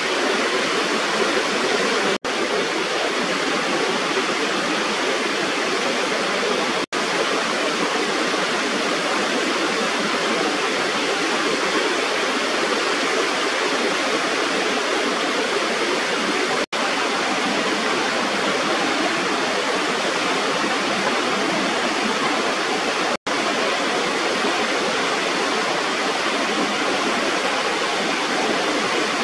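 Steady rushing of water pouring over a rubber weir in a small waterfall, broken by four split-second dropouts.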